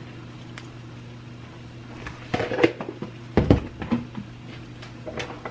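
A spatula knocking and scraping against a stainless steel pan as a lump of margarine is shaken off into the water, a few knocks with the heaviest about three and a half seconds in, over a steady low hum.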